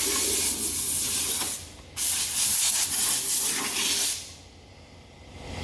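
Inside of a car wheel rim being cleaned: a harsh rubbing hiss in two long stretches with a short break between, dropping away near the end.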